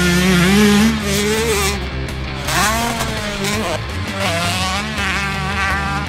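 Honda CR125 two-stroke motocross bike revving hard as it is ridden, its pitch climbing and dropping in repeated sweeps, loudest in the first second and a half. Rock music with guitar plays underneath.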